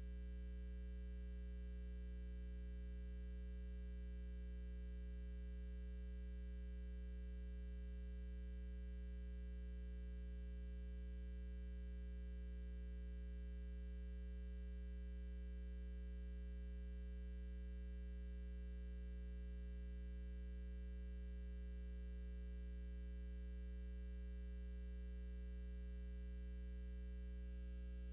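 Steady low electrical hum, with fainter higher humming tones stacked above it and nothing else.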